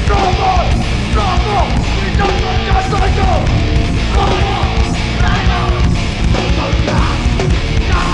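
Hardcore punk band playing live and loud: distorted electric guitars with bending, wavering notes over bass and drums.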